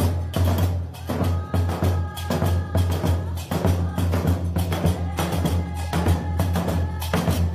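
Background music with drums and a constant deep bass line.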